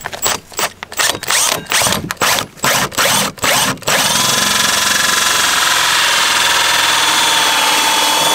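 Milwaukee M18 cordless drill driving a 2-inch hole saw through the plastic wall of a poly stock tank. The trigger is pulsed in about eight short bursts to start the cut, then the drill runs steadily from about four seconds in until it stops near the end.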